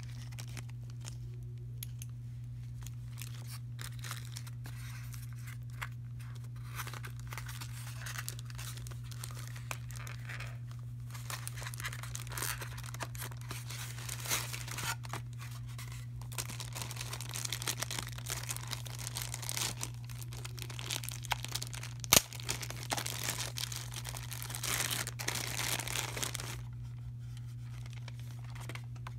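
Plastic packaging crinkling and rustling as a gadget is handled out of its clear plastic bag and moulded tray, busiest in the second half, with one sharp snap about three-quarters of the way through. A steady low hum runs underneath.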